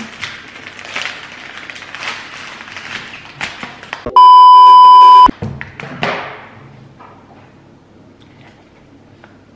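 Crinkling of a plastic snack wrapper, then about four seconds in a single loud bleep lasting about a second: a steady 1 kHz censor tone.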